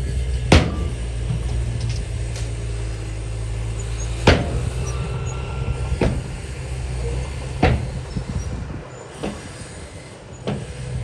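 Heavy diesel earthmoving machinery running with a steady low drone, broken by about six sharp metallic clanks at irregular intervals.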